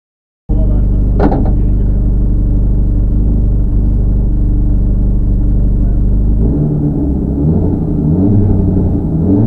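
Mercedes 190E 2.5-16V rally car's 16-valve four-cylinder engine heard from inside the cabin, running loud at steady held revs, with a single click about a second in. From about two-thirds of the way through, the revs rise and fall repeatedly as the car waits to start the stage.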